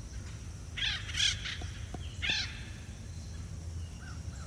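Acorn woodpeckers calling: two short calls close together about a second in and a third a little after two seconds, with a couple of faint clicks between them.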